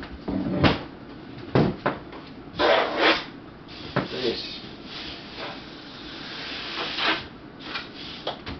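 Knocks, clicks and scraping from handling a plastic-topped, steel-legged folding table. There are several sharp knocks, and rubbing and scraping between them, with one longer scrape building up near the end.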